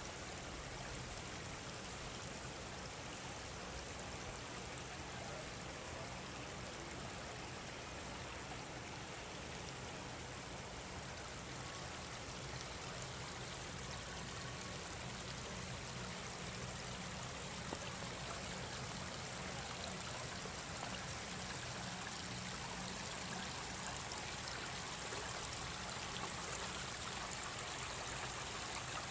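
Shallow creek running steadily over and between stones, growing a little louder near the end.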